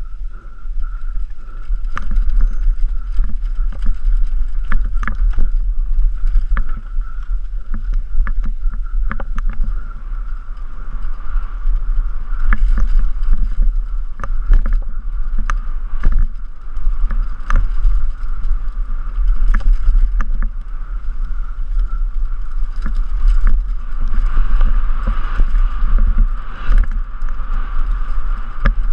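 Downhill mountain bike descending a rough trail, heard from a helmet camera: low wind rumble on the microphone, the bike rattling, with frequent sharp knocks over bumps and a steady high whir.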